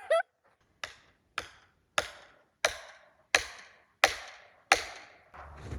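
Felling wedges being driven into the cut of a large tree: seven sharp, evenly paced strikes, about one and a half a second, each dying away quickly.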